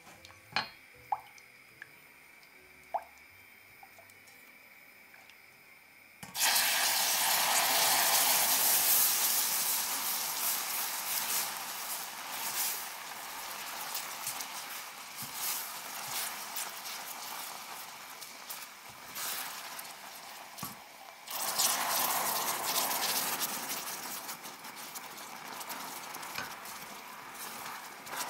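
Hot caramel in a stainless steel saucepan sizzling and bubbling up loudly as cream is poured in. It starts suddenly about six seconds in and fades slowly, then flares again with a second pour about fifteen seconds later, while a silicone spatula stirs. Before the first pour there are a few light taps of the spatula on the pan.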